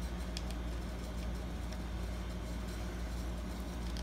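Steady low mechanical hum, with a few faint clicks as the lock's plastic cover is handled.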